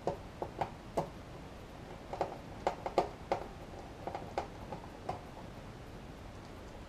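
A screwdriver and screws clicking and tapping irregularly against the metal chassis of a Behringer Ultragain Pro MIC2200 tube preamp as its screws are driven, with about a dozen sharp clicks stopping about five seconds in.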